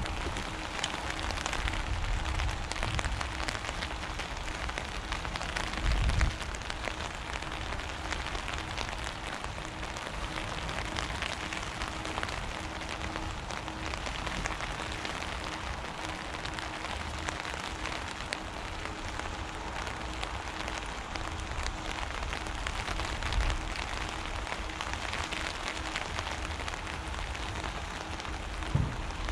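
Steady patter of rain, an even crackling hiss throughout, with a couple of dull low thumps, one about six seconds in and one near the end.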